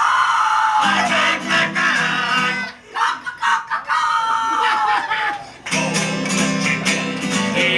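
Acoustic guitar with voices giving long, falling chicken-like squawks, three of them with short breaks between.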